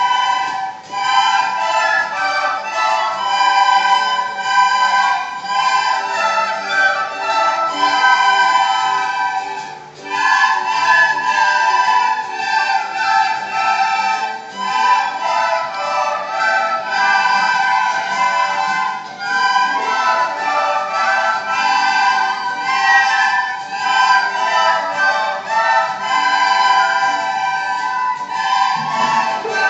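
A class of children playing recorders together in unison, a simple melody in phrases with short breaks between them about a second, ten seconds and nineteen seconds in.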